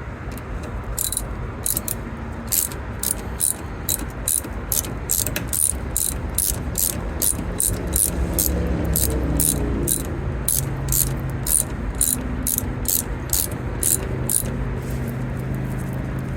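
Hand ratchet wrench being worked on a tail-light fastener, its pawl clicking on each back-swing in a steady rhythm of about two clicks a second, over a steady low hum.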